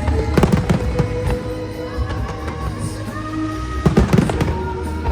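Fireworks bursting over the show's music soundtrack, which holds steady sustained notes. Clusters of sharp bangs come about half a second in and again around four seconds in.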